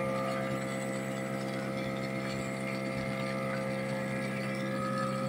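A foaming machine's built-in compressor and pump run with a steady, even hum while its hose sprays a jet of foam.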